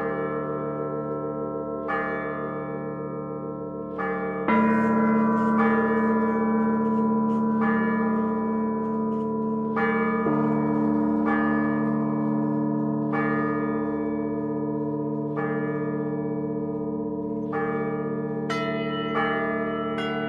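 Russian Orthodox cathedral bells rung by a bell ringer: medium bells struck about every two seconds over a long ringing hum, with a deep large bell joining about four seconds in and again about ten seconds in. Small high bells strike more quickly near the end.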